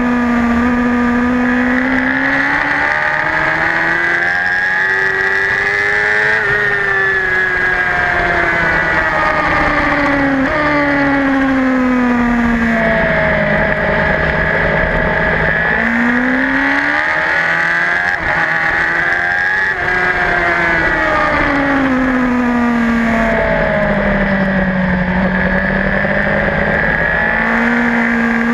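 Onboard sound of a racing superbike's engine at high revs. The engine note climbs through the gears, then drops away as the bike slows for corners, rising and falling several times.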